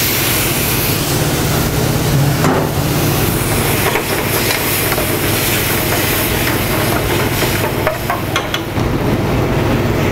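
Chicken stock sizzling and hissing as it hits a hot sauté pan of oil and onions on a gas burner, over the steady rushing noise of a commercial kitchen exhaust hood. A few light metallic clinks, from a ladle against the pan, come about two and a half seconds in and again near the end.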